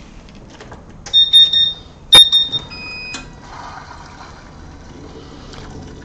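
A few high electronic beeps and a sharp click as the laser's cooling-water pump is switched on, then water running steadily through the hoses and the new flow switch.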